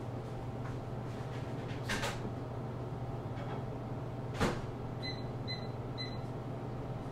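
A microwave oven's three short electronic beeps, about half a second apart, near the end, sounding as its heating cycle finishes, over a steady low hum. Two clicks come before, the louder one about four and a half seconds in.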